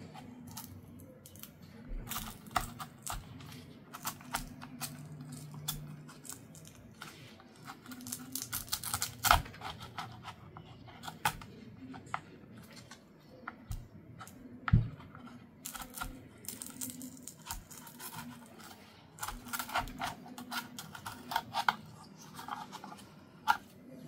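A plastic pry tool working around the rim of a car door speaker, peeling off its foam gasket ring: irregular scraping, tearing and crackling, with two sharper clicks about nine and fifteen seconds in.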